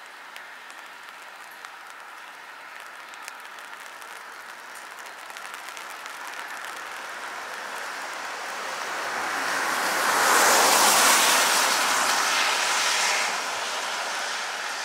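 Vehicle tyres hissing on a wet road as it passes. The hiss swells over several seconds, is loudest about two-thirds of the way through, then fades.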